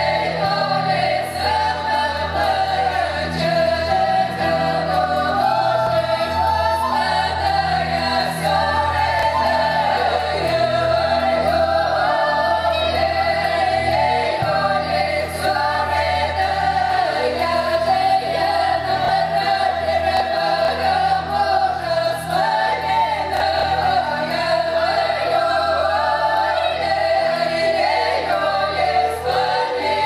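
Women's folk ensemble singing a Russian folk song together in full voice, over a steady low instrumental accompaniment.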